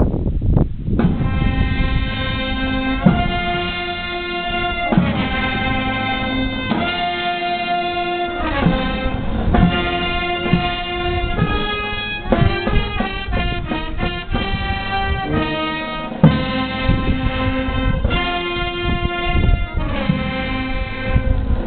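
Military brass band playing a slow melody of long held notes, about two seconds each, with a quicker run of notes around the middle.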